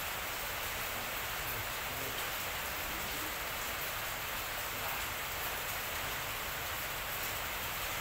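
A steady, even hiss that does not change, like rain or constant background noise.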